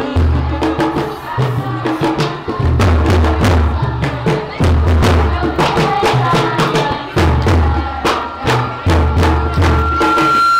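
A kourel, a group of young women, chanting a Sufi religious poem together through a PA, with a lead voice on a microphone, over regular sharp percussive strikes. A thin, steady whistling tone comes in near the end.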